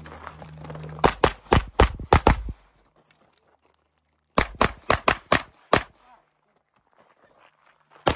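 Pistol shots fired rapidly in strings by a competitor shooting a USPSA stage. There is a string of about six fast shots a second in, another string of about six roughly three seconds later, and a further rapid string starting near the end.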